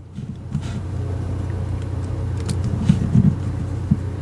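Steady low engine rumble that sets in about half a second in, with a few light, sharp clicks over it.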